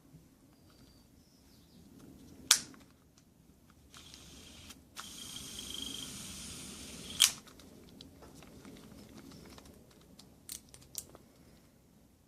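Baitcasting reel being worked by hand: two sharp clicks, with a soft whir between them for about two seconds that stops at the second click, and a few lighter clicks near the end.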